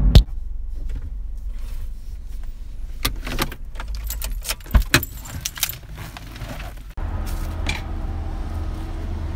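A bunch of car keys jangling and clinking for a few seconds, over a low steady hum. About seven seconds in, this gives way abruptly to a steadier low rumble.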